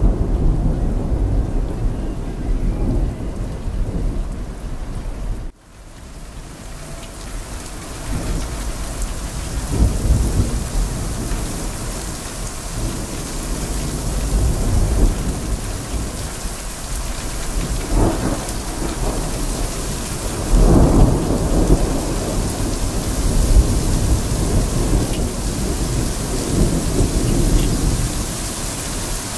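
Heavy rain falling steadily with rolling thunder rumbling again and again, the strongest rumbles about two-thirds of the way through. About five and a half seconds in the sound briefly cuts out, and the rain fades back up.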